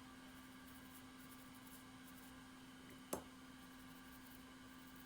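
Near silence with a faint steady hum, broken by a single sharp click about three seconds in.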